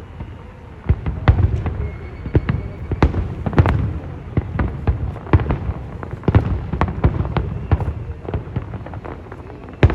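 Fireworks display: a rapid, irregular run of bangs and cracks over a low rumble, starting about a second in.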